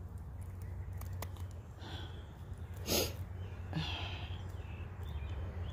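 Crows cawing a few times, with one short, loud burst of noise about three seconds in.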